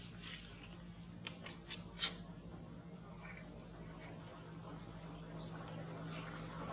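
Steady high-pitched insect drone, with a few sharp clicks between one and two seconds in and a couple of short rising chirps near the end.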